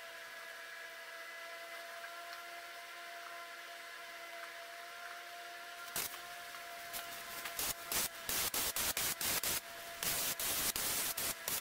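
Steady faint hum with a few held tones, then from about halfway an HVLP paint spray gun hissing as it is triggered in a quick series of short bursts, a few of them longer, while a bumper cover is sprayed.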